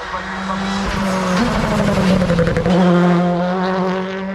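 Race car engine pulling hard up a hill-climb course. Its note jumps up about a second and a half in, sags over the next second, then holds steady.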